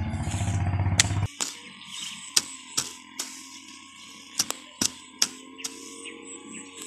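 Small hand hoe striking and scraping soil: a string of irregular sharp chops and clicks as earth is pulled up around the base of an eggplant seedling. Before that, a steady low motor-like drone cuts off abruptly about a second in.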